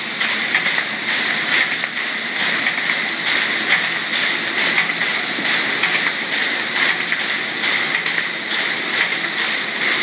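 Folder-gluer running while it glues and plow-folds pocket-folder pieces: a steady whirring of belts and rollers with fast, continuous clicking as the pieces feed through.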